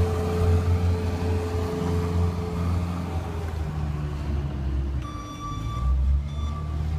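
A JCB farm machine's diesel engine running steadily with a low drone. About five seconds in, a high beeping tone sounds for about a second, then again briefly.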